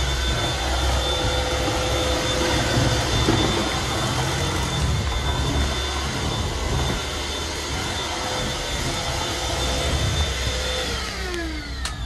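Craftsman V20 cordless stick vacuum running steadily on hard floor with its brush roll off: a whooshing suction with a steady high motor whine. About eleven seconds in it is switched off, and the whine falls in pitch as the motor spins down.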